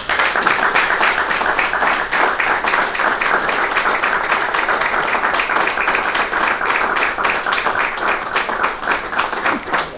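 Audience applauding: many hands clapping, starting all at once and holding steady.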